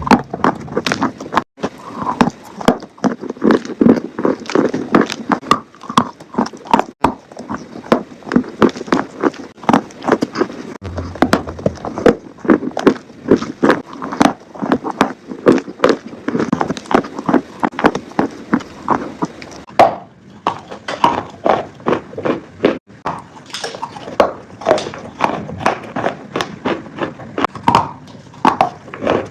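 A piglet chewing and crunching food: a quick, unbroken run of crisp crunches, several a second.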